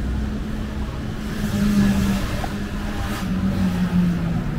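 A car driving past on the street: a steady engine hum with tyre noise that swells to its loudest about two seconds in, the engine note dropping a little in pitch past the middle.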